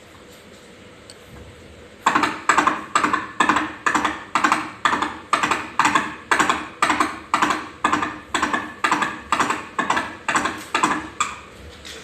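Coconut shell halves knocked together and on a surface in a steady rhythm of about two hollow clops a second, a Foley imitation of a horse's hoofbeats. The clopping starts about two seconds in.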